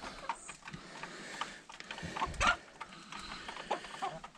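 Chickens moving about a run: scattered small taps and scratches, with a few faint short clucks near the end.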